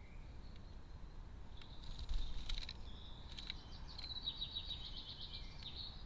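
A bird calling in high notes, ending in a quick run of repeated notes, about nine a second, in the second half. A few sharp clicks and a thump come about two seconds in.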